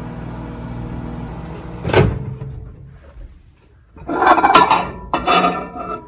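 Microwave oven running with a steady hum, cut off by a sharp click about two seconds in as the door is opened mid-cycle. Loud rustling and handling noises follow near the end.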